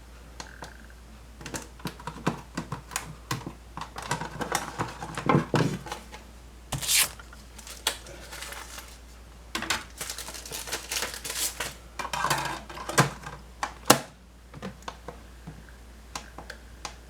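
Irregular clicks, clatter and rustling as a test CD is taken out and handled, with one sharp click about 14 seconds in, over a steady low hum.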